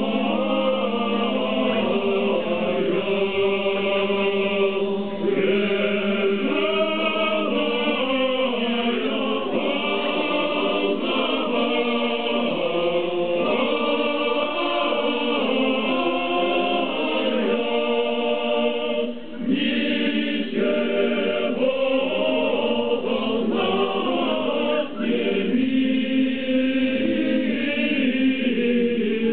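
Large choir singing in harmony, with a steady low held note under the moving upper parts. There is a brief break about two-thirds of the way through.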